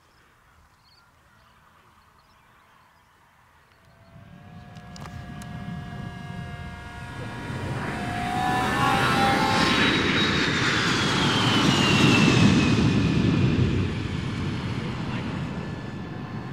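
Radio-controlled model de Havilland Mosquito flying past. Its motor and propeller noise builds from about four seconds in and is loudest past the middle, and its whining tone falls in pitch as it goes by, then eases off.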